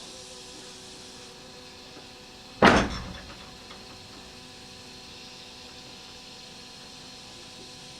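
A single sharp bang about two and a half seconds in, dying away quickly, over a steady hum.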